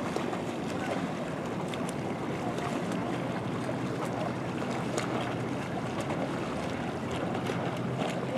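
Steady wind noise on the microphone by open water, with a few faint scattered clicks and a faint low hum that comes up about halfway through.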